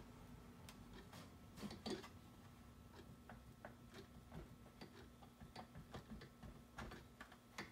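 Faint, irregular clicks and knocks of a two-stroke ATV engine's crankcase half being wiggled back and forth to start it onto the crankshaft, metal tapping on metal, with the loudest couple of knocks about two seconds in.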